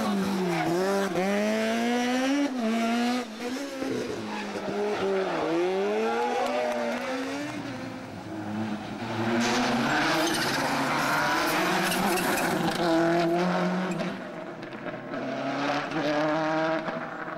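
Rally car engines revving hard as the cars are driven through bends. The pitch climbs and drops again and again with throttle and gear changes.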